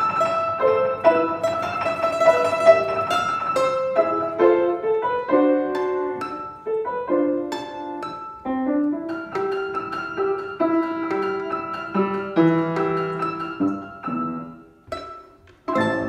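Domra and piano playing a quick plucked melody over piano chords: a held high domra note at first, then runs of short plucked notes. The music softens and closes on a final loud chord near the end.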